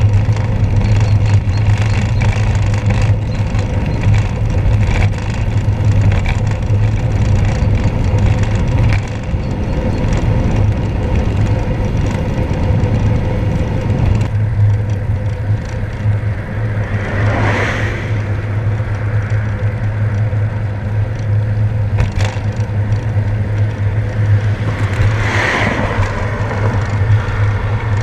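Wind buffeting the microphone of a handlebar-mounted camera on a moving bicycle, with a steady low rumble of tyres on a wet road. Twice, about two thirds of the way in and again near the end, a louder swishing swell rises and fades.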